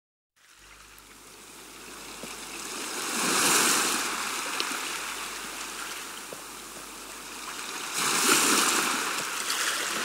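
Running water, a recorded stream, fading in and swelling louder twice.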